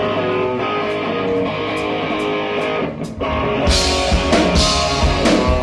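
Rock band playing: a guitar plays chords on its own for about three seconds, then drums and the full band come in loudly.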